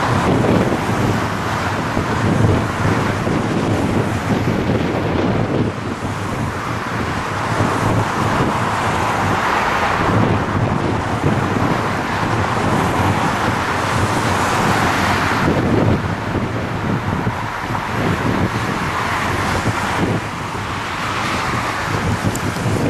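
Airbus A340-300's four CFM56-5C turbofans running at taxi power as the jet taxis up, a steady jet noise with a faint whine, with wind buffeting the microphone.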